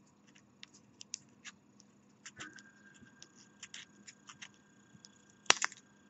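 Light metallic clicks and scrapes of a small split ring being worked onto an engraved metal pet ID tag: a scattered run of tiny ticks, with the sharpest click about five and a half seconds in.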